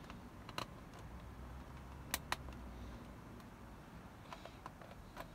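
Scattered faint, sharp clicks of small screws and plastic case parts being handled as a Sony Walkman WM-32 cassette player is taken apart, including a quick pair a couple of seconds in and a few small ticks near the end.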